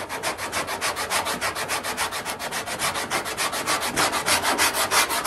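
Long hand sanding block with sandpaper rasping back and forth over cured body filler on a steel car fender, in quick even strokes about six a second that grow louder about four seconds in. It is cutting down the high spots of filler to bring back a straight body line.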